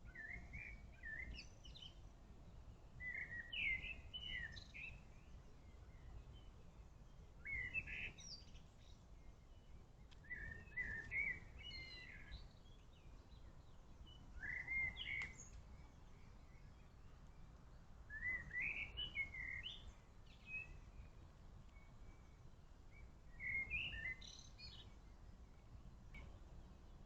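A songbird singing short chirping phrases, repeated every few seconds, over a faint low background rumble.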